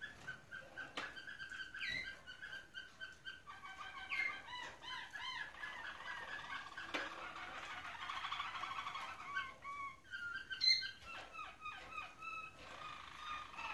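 Roller canaries singing: a run of repeated short notes, then long rolling, warbling trills that rise and fall. A single sharp click about ten seconds in.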